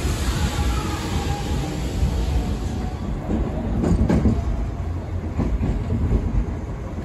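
Trains moving through a station: a Sanyo Electric Railway commuter train rolling along the platform, then a JR Hamakaze limited express, a KiHa 189 series diesel railcar set, running past. Steady rumble throughout, with a quick run of wheel clacks over rail joints about four seconds in.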